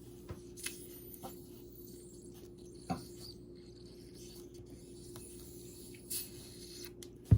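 Faint fizzing of Frostop root beer, a thin hiss with a few small scattered pops and ticks: only a weak fizz, the sign of light carbonation. A sharp click sounds near the end.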